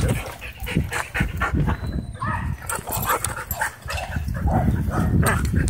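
Dogs in rough chasing play, giving a quick, irregular string of short vocal sounds.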